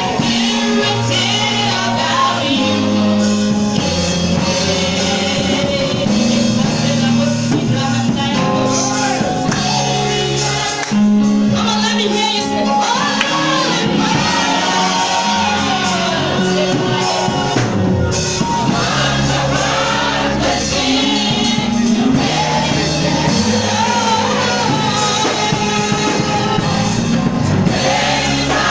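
Gospel music: a choir singing over a steady band accompaniment with sustained bass notes.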